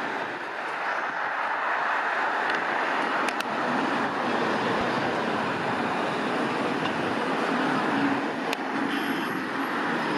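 A tram running along the street, a steady rumble mixed with traffic noise, with a few sharp clicks.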